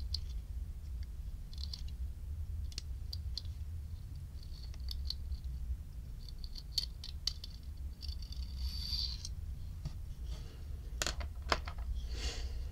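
Small metallic clicks and scratches as the flint spring screw is unscrewed by hand from the base of a vintage Ronson De-Light Junior Sport lighter, with two sharper clicks about eleven seconds in.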